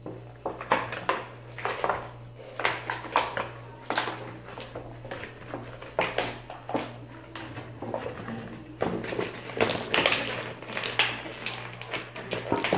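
Clear plastic blister packaging crinkling and crackling in quick, irregular snaps as it is handled and pulled apart to free small toy figures.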